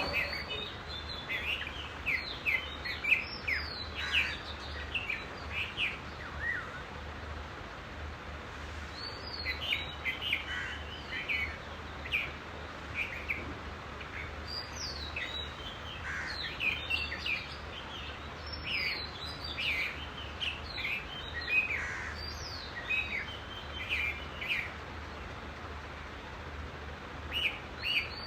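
Small birds chirping and twittering in scattered bursts of short rising and falling notes, over a faint steady low hum.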